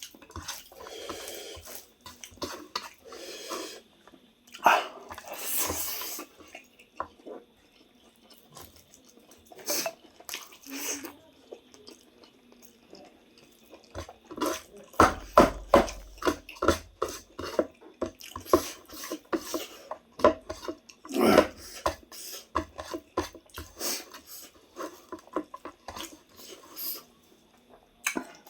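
Close-up eating sounds: wet chewing, lip smacking and mouth clicks, coming in irregular runs and busiest in the middle of the stretch.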